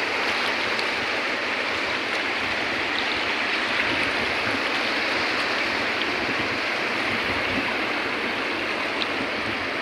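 Steady rush of sea surf and churning water, with no distinct breaks or pauses.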